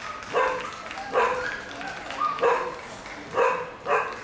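A dog barking repeatedly: five loud barks, roughly one a second.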